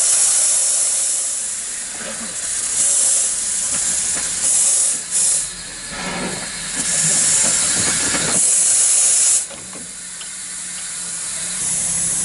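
Narrow-gauge steam locomotive hissing steam in a string of loud bursts that start and stop. The longest burst cuts off sharply about nine seconds in, and the hiss builds again near the end.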